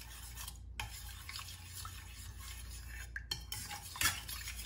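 Metal spoon stirring and scraping oat powder and water in a small metal saucepan, with light clinks against the pan, mixing out the lumps; one louder clink about four seconds in.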